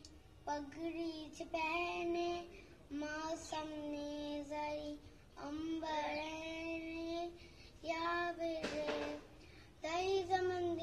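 A young girl singing an Independence Day patriotic song unaccompanied, in phrases of held notes with short pauses between them. A brief burst of noise comes about nine seconds in.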